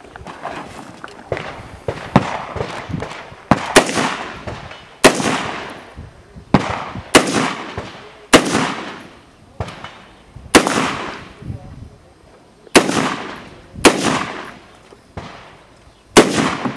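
Rifle shots fired one at a time during a timed IPSC course of fire: about a dozen sharp cracks, irregularly spaced about one to two seconds apart, each with an echo trailing off. Softer clatter comes before the first shot, about two seconds in.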